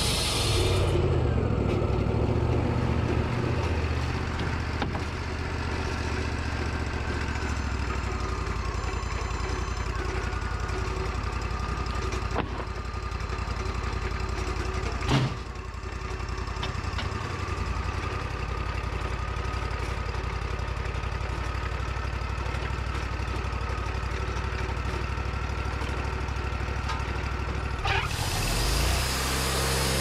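Wood-Mizer LT40 band sawmill: the blade finishes a cut in cherry about a second in. After that the mill's engine runs steadily at low speed with a faint whine above it, and there is one sharp knock about halfway through. Near the end the saw noise builds up again.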